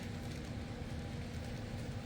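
N scale model freight train running on Kato Unitrack: a steady rumble of wheels on rail and a small locomotive motor, with a faint steady hum.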